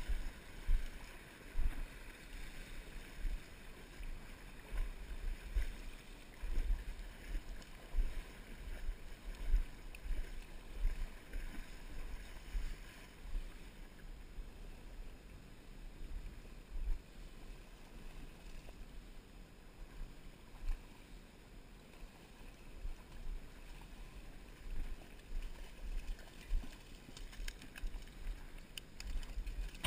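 Muffled low rumbling from wind and river water on a GoPro's microphone, with frequent irregular bumps as the angler wades downstream through the current.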